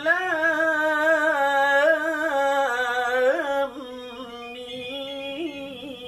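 Male voice reciting the Quran in a melodic chant, drawing out a long, wavering, ornamented vowel on the opening letters 'Alif Lām Mīm'. About three and a half seconds in it drops quieter as it moves on to 'Lām'.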